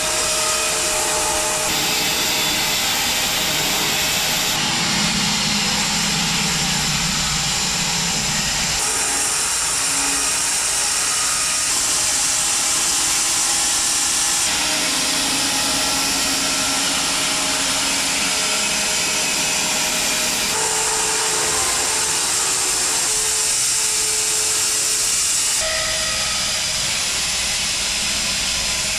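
Home-built bandsaw mill running with its blade cutting through a maple log: a loud, steady hissing rush of sawing, whose tone shifts abruptly every few seconds.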